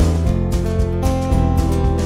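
Instrumental background music with guitar, with notes changing at a steady pace.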